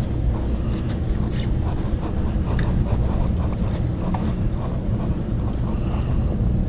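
Fishing boat's engines running with a steady low rumble.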